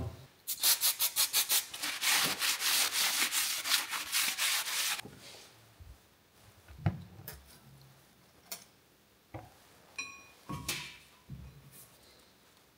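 Quick rhythmic rubbing and scrubbing on the new front wheel hub's face as it is cleaned, lasting about four and a half seconds. Scattered light knocks and metallic clinks follow as the brake caliper is handled and set back over the disc, with one ringing clink about ten seconds in.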